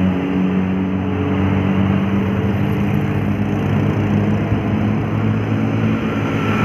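Large diesel road-vehicle engine running steadily under load on a hill climb: a constant low drone of unchanging pitch, with no horn.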